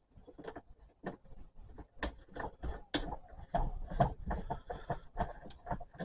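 Irregular clicks and knocks of plastic dust-separator parts and hose fittings being handled and pushed together, busiest in the middle of the stretch.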